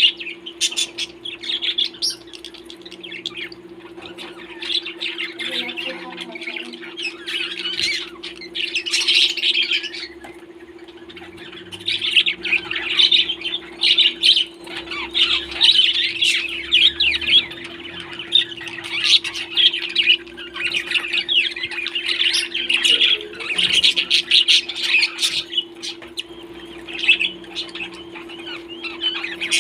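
Parrots squawking and chattering almost continuously in rapid, harsh calls, easing off briefly about a third of the way in, over a steady low hum.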